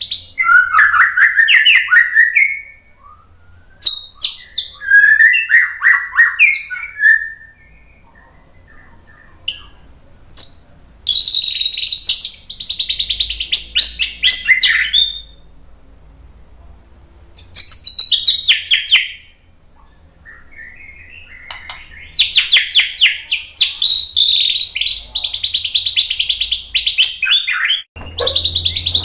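White-rumped shama (murai batu) singing loud phrases of fast, rattling notes, about five phrases in all with short pauses between them, the longest in the last third.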